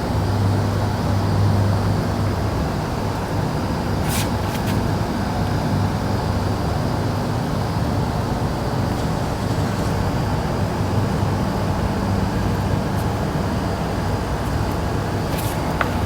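Steady outdoor background noise of road traffic with a constant low hum, broken by brief clicks about four seconds in and again near the end.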